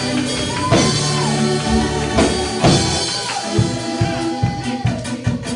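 Live gospel praise-break music: a drum kit with several cymbal crashes over held keyboard chords and bass, turning in the second half to quick, evenly spaced bass-and-drum hits.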